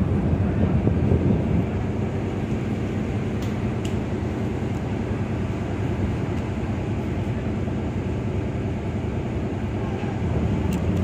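Ship's engine running with a steady low rumble while the vessel comes in to dock, with a few faint clicks.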